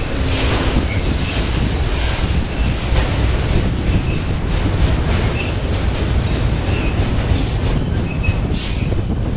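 Autorack freight cars rolling past on steel rails: a steady loud rumble of wheels on track, with wheels clacking over joints about once a second and brief high wheel squeals.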